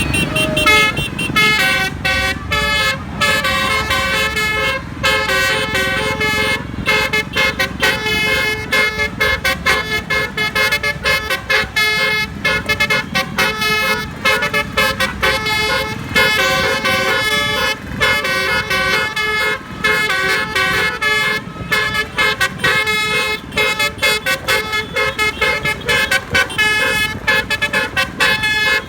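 Bus Basuri telolet air horn playing a fast melody of quick, changing multi-tone notes, over vehicle rumble.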